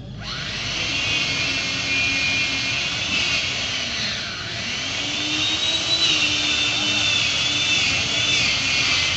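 Chainsaw running while cutting into a tree trunk; its motor pitch wavers with the load, dipping about four seconds in and climbing back up.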